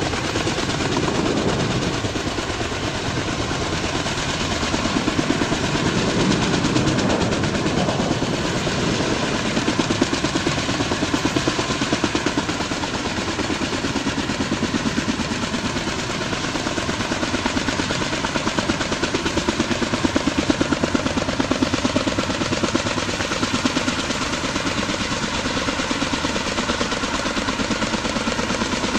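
Kaman K-MAX helicopter's intermeshing twin rotors and turboshaft engine running in a hover, a fast steady beat of rotor blades, as it lifts a slung cargo load on a long line.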